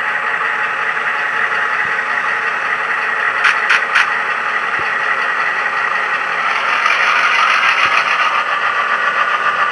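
A SoundTraxx Tsunami sound decoder in an HO-scale CF-7 model locomotive plays a steady EMD 567 diesel engine sound through the model's small speaker, thin and rattly. Three short clicks come about three and a half seconds in, and the engine sound grows a little louder past the middle.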